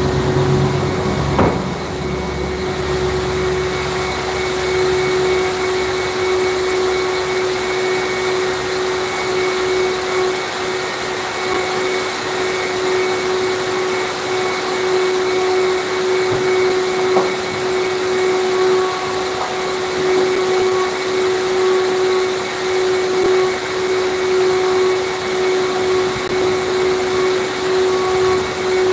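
Vacuum cleaner running steadily with a constant whine, used on a car's interior. There is a short knock about a second and a half in.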